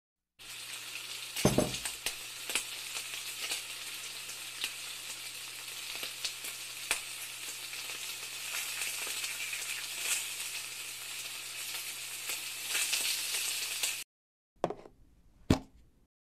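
Sizzling of food frying in a pan: a steady hiss with scattered pops and crackles that cuts off suddenly about 14 seconds in. Then, briefly, a quieter stretch with one sharp knock.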